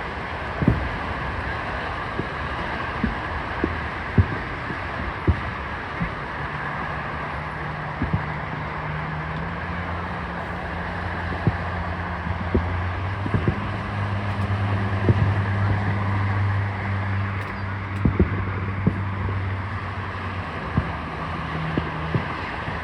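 Fireworks going off: a scattered series of short, sharp bangs, roughly one a second, over steady background noise. A low steady hum comes in a few seconds in and stops near the end.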